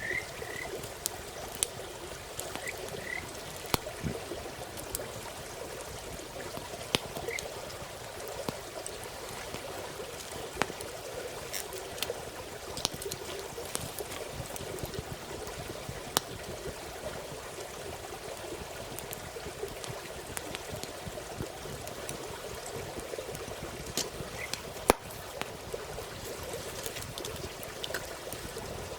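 A steady chorus of frogs calling, with a campfire crackling in sharp snaps scattered throughout. A few short, higher single frog calls stand out from the chorus.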